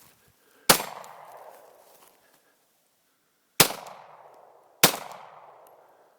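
Three pistol shots from a Glock 23 firing 9mm through a Lone Wolf .40-to-9mm conversion barrel: one about a second in, then two close together near four and five seconds. Each shot trails off in an echo.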